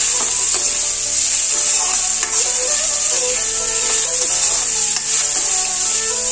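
Eel pieces and leaves sizzling in hot oil in a steel wok as they are stirred with a metal ladle, the ladle scraping against the pan.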